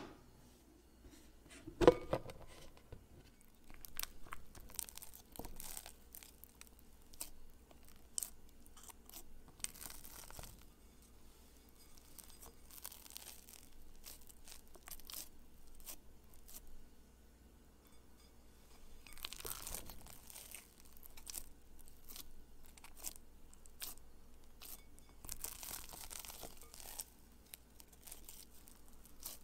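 Hands folding a sticky gluten-free multigrain sourdough dough in a glass bowl: irregular soft tearing and squelching as the dough is pulled up and pressed down, with small ticks of fingers against the glass. About two seconds in there is one sharp knock as the plastic lid comes off the bowl.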